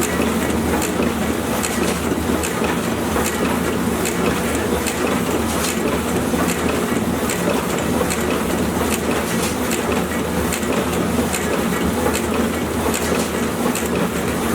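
Sticker label printing press running steadily, its ink rollers turning, with a regular clicking about twice a second over a constant mechanical hum.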